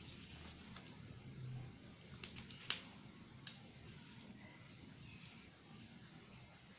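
Faint scattered clicks and light taps, like small objects being set down and handled. One short high-pitched chirp about four seconds in is the loudest sound.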